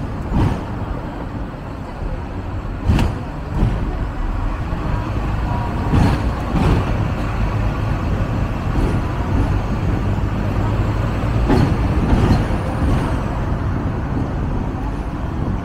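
Hong Kong double-decker electric tram running, a steady rumble broken by a number of short knocks and clatters.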